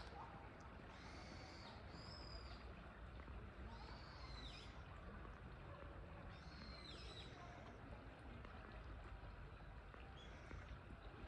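Faint, steady rush of water flowing along the Tamagawa Josui aqueduct channel. Over it, a bird calls about five times, a couple of seconds apart, each call a short high note that rises and falls.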